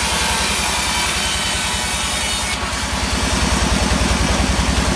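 Sawmill saw cutting through a teak log over a steadily pulsing engine. The high cutting hiss stops suddenly about halfway through, and the engine keeps running.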